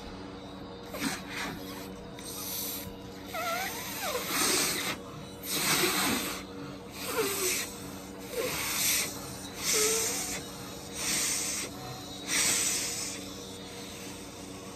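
A latex balloon being blown up by mouth: about ten puffs of air into it, roughly one a second, with a few short squeaks.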